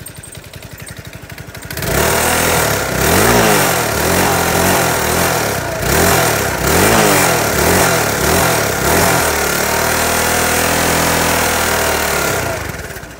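Honda Helix 250 scooter's single-cylinder four-stroke engine, running with dish soap in place of its oil: idling, then from about two seconds in revved up and down hard several times, held at high revs, and dropping back near the end. It still runs strongly despite the soap.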